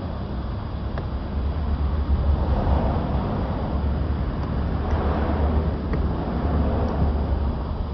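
Steady low rumble and rushing background noise, with a few faint small clicks scattered through it.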